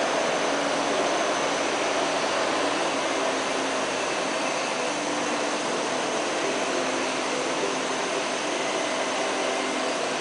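Combilift four-way forklift running as it drives with a load: a steady mechanical hum and whine over an even hiss, holding one level throughout.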